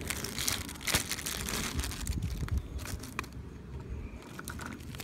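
Thin plastic packaging bag crinkling as it is handled and opened, a dense crackle for about the first three seconds, then a few scattered rustles.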